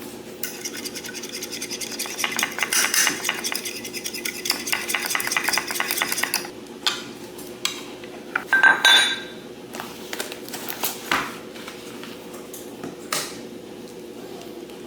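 Egg, heavy cream and spice batter being beaten in a bowl with a utensil: rapid clicking strokes for about six seconds. Then scattered knocks and clinks of the utensil against the bowl.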